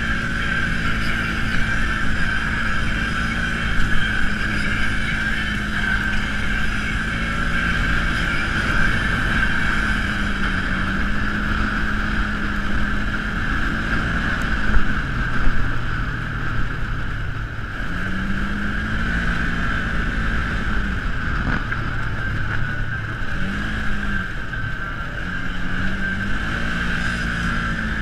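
Side-by-side off-road vehicle's engine running under way on a dirt trail, holding a steady pitch at first and then rising and falling several times with the throttle over the last third. A steady high whine runs alongside it.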